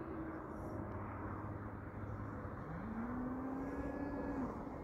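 Distant RC model airplane motor running in flight over a steady rushing background noise. Its pitch rises a little past halfway, holds, then drops near the end.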